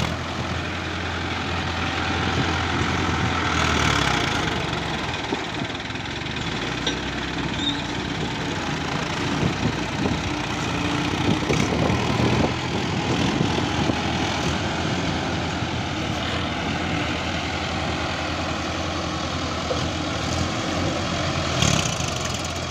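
Mahindra Arjun 555 tractor's diesel engine running steadily as the tractor drives through flooded mud.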